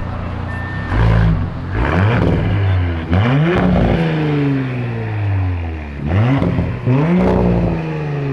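Audi B9 S4's turbocharged 3.0-litre V6 breathing through an AWE track exhaust with downpipes, revved about three times at a standstill. Each rev climbs quickly and falls slowly back to a throaty idle.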